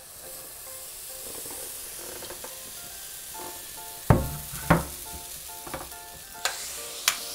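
Waffle batter sizzling with a steady hiss on a hot electric waffle iron. From about four seconds in come a few knocks as the spatula taps the mixing bowl, and the iron's lid clunks shut near the end.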